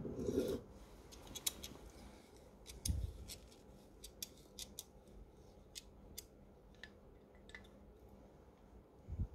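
Digital caliper being handled and slid along its steel beam, its jaws closing on the edge of a small metal milling table: a string of small sharp metallic clicks and scrapes, with dull knocks of handling at the start, about three seconds in and near the end.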